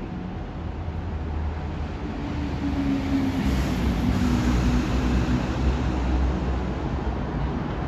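NYC subway train (F line) approaching an elevated station: a low rumble of wheels on the rails with a faint steady hum over it, growing louder about halfway through.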